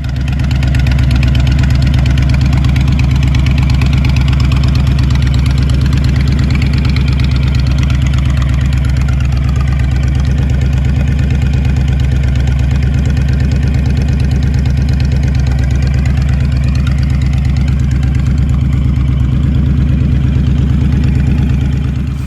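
2008 Honda VTX1300C's V-twin engine idling steadily through its Vance & Hines exhaust, with a deep, even pulse.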